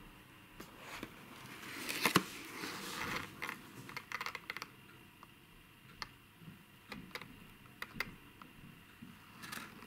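Cardboard lid of an old model-train box being lifted off: a scraping rustle with a sharp click about two seconds in, then scattered light clicks and taps of cardboard being handled.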